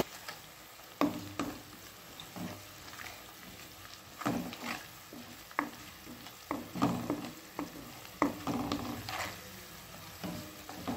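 Spatula stirring chopped onions and green chillies frying in oil in a kadhai: irregular scrapes and light knocks against the pan, a dozen or so, over a faint sizzle.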